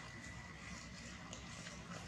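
Faint steady background noise with a low hum and no distinct event.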